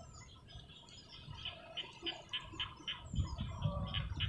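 A bird chirping over and over in short, evenly spaced calls, about four a second, with a low rumble underneath from about three seconds in.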